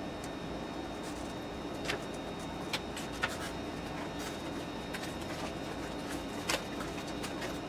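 A few light clicks, scattered singly over a steady background hum.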